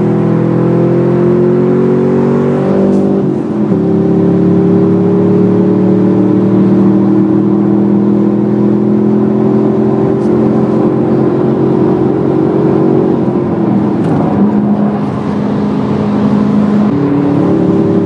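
Chevrolet Camaro SS's 6.2-litre V8 heard from inside the cabin at motorway speed. The engine pitch climbs under acceleration, drops at a gear change about three seconds in, then climbs slowly again. It falls away around thirteen seconds as the throttle lifts, and steps back up near the end.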